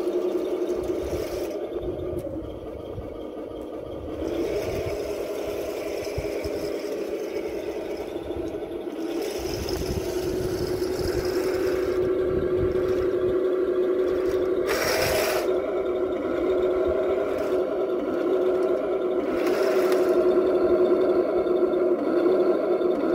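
Henglong King Tiger radio-controlled model tank driving on concrete: a steady drone of constant pitch over the low rattle of its running gear, dipping about two seconds in and growing louder near the end. A short hissing burst about two-thirds of the way through.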